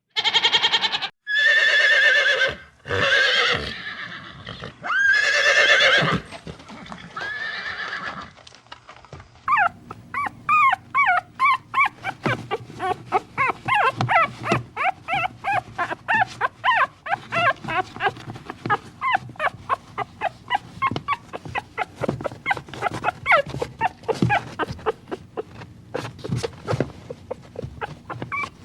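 A horse whinnying about five times, each call long and wavering. After about nine seconds it gives way to a long run of rapid short calls, several a second, from another animal.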